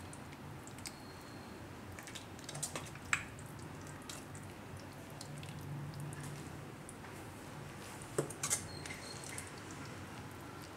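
Metal ladle serving curry into a stainless steel bowl: soft drips and pouring of gravy with small clinks, louder clinks about three seconds in and again about eight seconds in. A faint low hum runs underneath.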